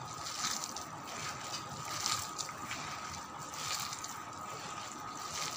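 A hand squishing and kneading a wet mix of grated bottle gourd and gram flour in a plastic bowl: irregular soft squelching and rustling.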